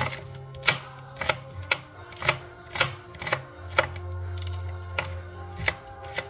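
Chef's knife chopping red onion on a plastic cutting board: about ten sharp chops, irregular, roughly two a second. Background music plays underneath.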